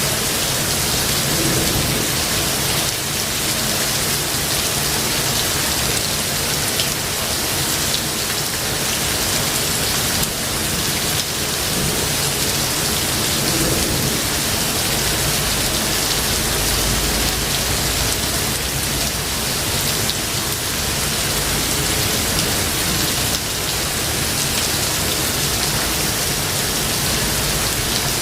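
Steady heavy rain, a dense even hiss, with low thunder rumbling in the background that swells in the second half.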